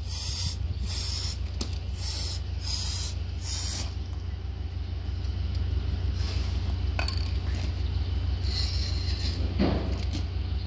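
Aerosol can of dye-penetrant developer sprayed onto a weld in about five short hissing bursts over the first four seconds, then stopping. A steady low hum runs underneath.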